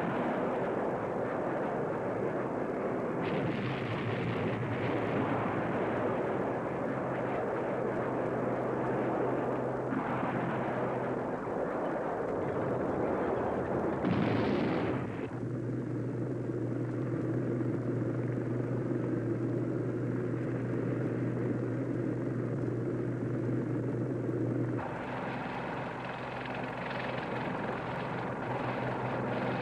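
Military helicopter and tracked armoured vehicle noise: a loud, continuous rumble with a steady low hum that changes abruptly several times, with a brief louder rush about fourteen seconds in.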